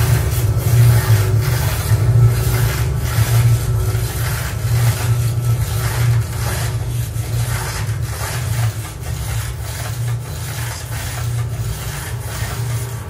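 Electroacoustic sound collage played over a loudspeaker: a steady low hum overlaid with a rhythmic rubbing, rasping pulse, about three strokes every two seconds. It is built from layered recordings of a historic clothes mangle turning with plastic bottles squeezed between its rollers.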